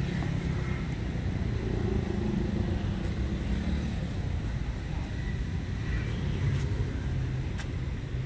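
Steady low rumble of outdoor background noise, with two faint clicks in the second half.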